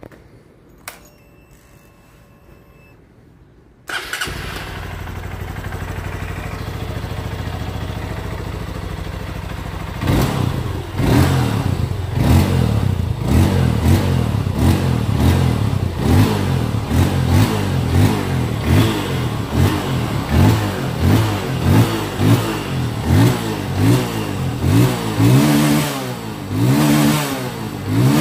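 Honda CRF150L single-cylinder four-stroke engine with an aftermarket Kalkal exhaust pipe. After a few faint clicks it starts about four seconds in and idles steadily. From about ten seconds in the throttle is blipped over and over, a rev roughly every second.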